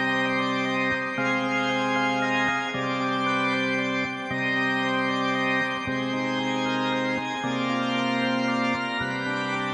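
Background music: sustained chords that change about every second and a half.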